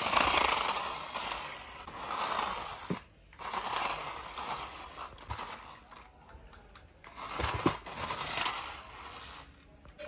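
Toy remote-control car's small electric motor and gears whirring as it drives, with its plastic wheels rolling on a hard stone floor. It goes in three spurts with short pauses between.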